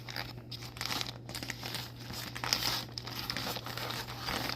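Crinkling and tearing of the packaging around a Pop Mart Labubu blind-box figure as it is unwrapped by hand: an irregular run of crackles and small clicks.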